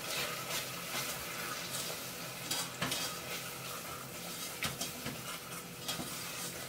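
Wooden spoon stirring melting butter, sugar and molasses in a stainless steel saucepan, over a steady low sizzle, with occasional light knocks of the spoon against the pan.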